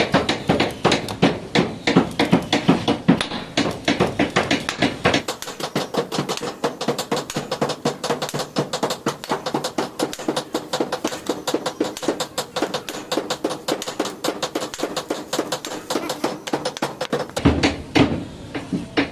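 Rapid, steady metal-on-metal tapping, several strikes a second, as scale is cleaned off a jammed boiler safety valve part, with a heavier knock near the end.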